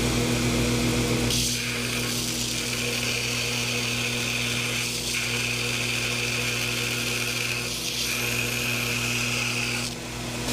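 Electric power tool running with a steady motor hum, then cutting out a steel knife blank's profile about a second in, a continuous grinding noise with a few brief let-ups that stops near the end.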